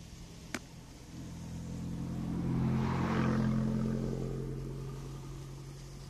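A car passes by, its sound swelling to a peak about three seconds in and then fading away. A single sharp click comes just before it, under a steady low hum.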